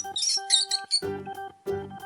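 Rat squeaking: a quick run of short, high squeaks in the first half, over background keyboard music.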